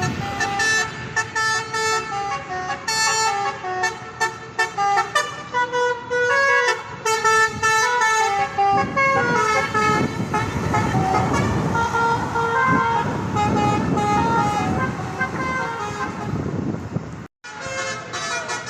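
Tour bus's telolet horn, a multi-tone Basuri-type musical air horn, playing a fast tune of short stepped notes that jump up and down in pitch, with the bus's engine and road noise underneath. The sound cuts out for an instant about a second before the end, then the horn goes on.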